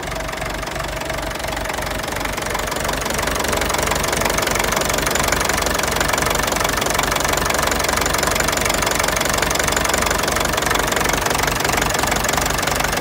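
Ferguson TEF-20's four-cylinder diesel engine running steadily with an even beat, warming up after a cold start; it gets slightly louder about three seconds in.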